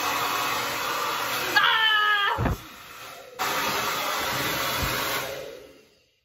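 Hair dryer blowing a steady rush of air, with a short wavering tone about two seconds in. The sound drops out briefly, comes back, then dies away near the end.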